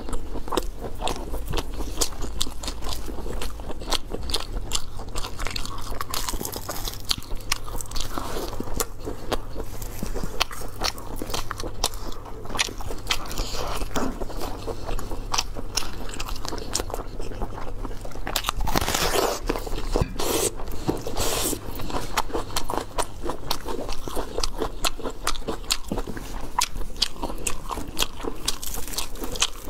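Close-miked eating: a dense, continuous run of bites, crunches and chewing sounds, with many short sharp clicks.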